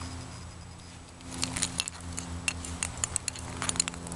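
Small metal clicks and rattles from a paracord fire kit with a split ring, carabiner, UST ferro rod and striker being handled, a quick irregular run of clinks starting about a second in.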